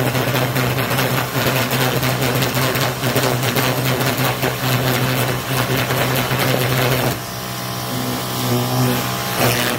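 Greenworks electric pressure washer running at 2300 psi with a turbo nozzle, its jet hitting a patio umbrella's canopy and spinning it. About seven seconds in the spray noise drops and the pump's steady hum comes through more plainly, with a brief loud burst near the end.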